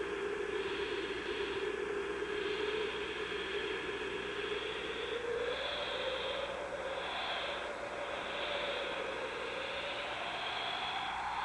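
Steady droning tones, one low and one high, wavering slowly over a constant hiss; the low tone climbs slightly about five seconds in.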